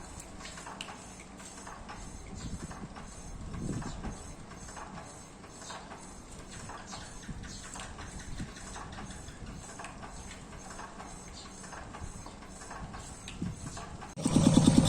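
Faint scattered knocks and clatter, then near the end a small diesel engine suddenly starts, running loud with a rapid, even beat.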